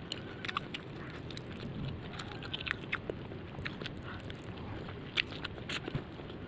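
A person chewing and biting food close to the microphone, with scattered crisp crunching clicks through it.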